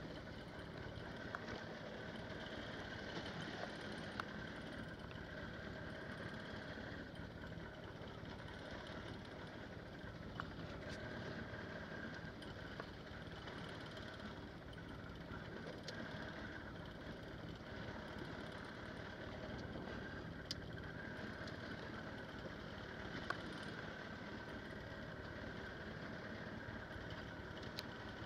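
Boat engine idling steadily under a haze of wind and sea noise, with a few sharp clicks here and there.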